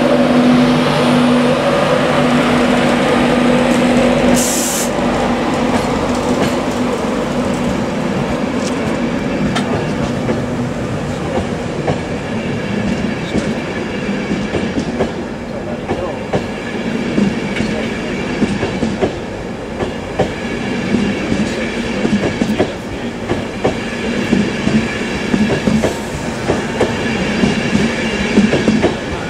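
Electric InterCity 225 train, a Class 91 locomotive and Mark 4 coaches, running past along the platform. The locomotive's steady hum fades in the first few seconds, and then the coaches' wheels click over the rail joints.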